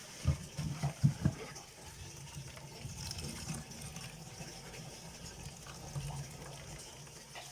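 Coconut milk being squeezed by hand from grated coconut meat and trickling into a bowl. A few low knocks of handling come in the first second and a half.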